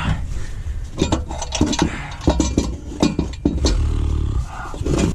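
Irregular metallic knocks, clanks and scrapes from handling tools and the heavy gearbox under a truck, with a brief low drone a little before the end.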